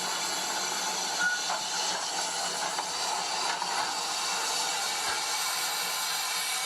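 Added steam locomotive sound effect for a model Peckett saddle tank: a steady hiss of steam.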